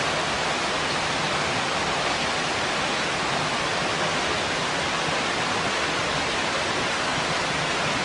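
Small waterfall cascading down stepped rock ledges into a pool: a steady rush of falling water.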